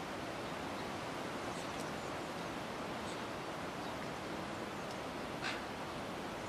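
Steady outdoor background hiss, like wind on the microphone, with a few faint short high chirps, the clearest about five and a half seconds in.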